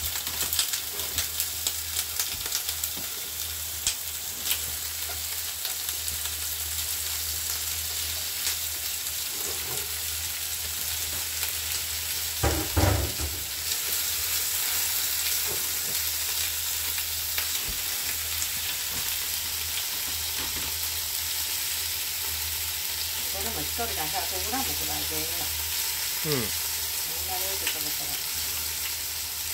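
Stir-fry sizzling steadily in hot oil in a frying pan, with the clicks of a utensil stirring it, thickest in the first few seconds.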